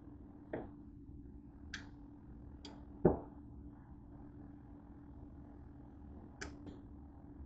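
Handling noises around a kitchen counter and an open electric contact grill: a few light clicks and taps, and one louder thump about three seconds in, over a faint steady hum.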